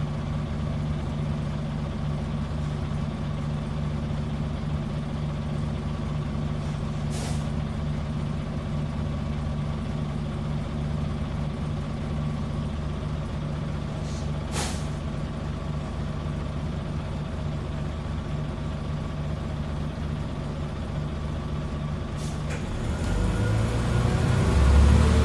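Scania N94UB bus's nine-litre five-cylinder diesel idling steadily, heard from inside the saloon, with two short hisses of compressed air about seven and fourteen seconds in. Near the end the engine revs up and grows louder as the bus pulls away.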